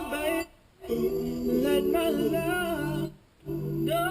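A song with a singing voice, streamed from Pandora and played over the car's stereo. The vocal phrases are broken by two short pauses.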